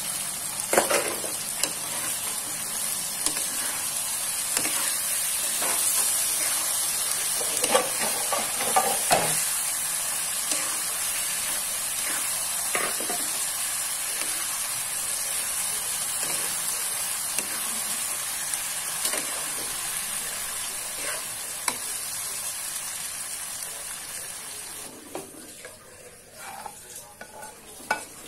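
Sambal sizzling steadily in a wok while a spatula scrapes and knocks against the pan, stirring fried eggplant and tempe through the sauce. Near the end the sizzle dies down and a few sharp knocks follow as the wok is tipped and scraped out into a bowl.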